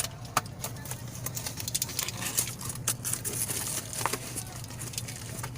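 Irregular plastic clicks and taps from a new phone tripod being handled and its parts fitted together, over a steady low hum.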